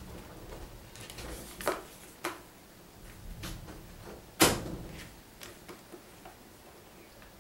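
Lego bricks being handled and pressed together: a few separate sharp clicks and knocks of plastic pieces, the loudest about four and a half seconds in.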